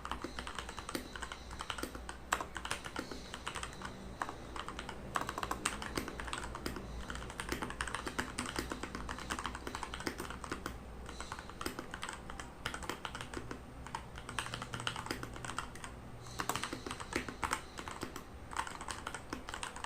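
Redragon Kumara mechanical keyboard with lubed Outemu Red linear switches being typed on continuously: a dense, irregular stream of key strokes.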